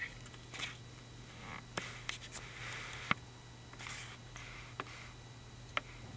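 Small handling sounds on a desk: a few sharp clicks and several short scratchy rustles, over a steady low hum.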